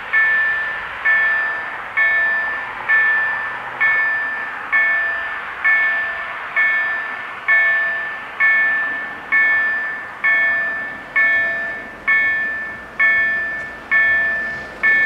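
Level crossing's warning bell ringing in single strokes, a little under once a second, each stroke ringing out before the next: the signal that the barriers are down and a train is approaching.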